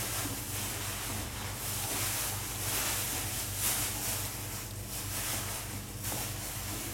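Spatula stirring and scraping a thick masala paste around a non-stick frying pan, in repeated strokes.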